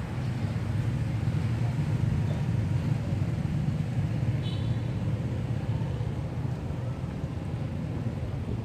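Steady low rumble of motor traffic, with one brief high chirp about four and a half seconds in.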